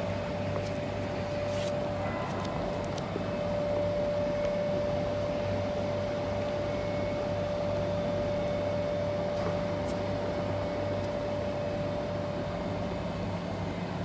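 Steady mechanical hum with one constant high-pitched tone over a low drone, and a few faint clicks in the first few seconds.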